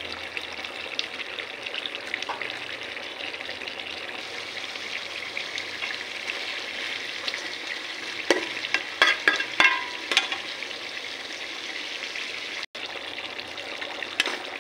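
Duck curry simmering in a metal pot, sizzling with a steady hiss. From about eight to ten seconds in, a metal spatula stirs it, scraping and clinking against the pot several times.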